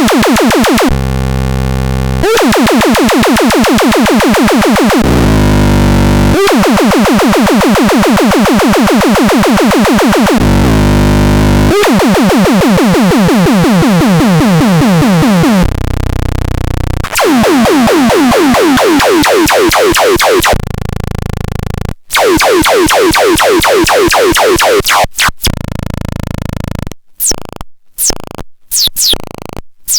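Harsh, noisy electronic synthesizer sounds: dense buzzing textures with fast repeating pitch sweeps, switching abruptly to a new timbre every few seconds. Near the end it breaks into choppy, stuttering fragments with short silences between them.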